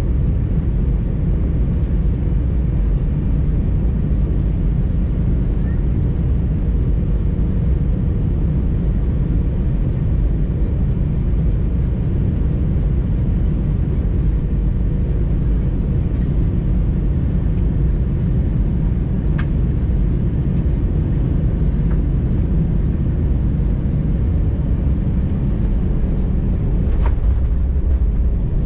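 Steady cabin rumble inside an Airbus A319-100: engine and airflow noise, with a faint steady tone over it.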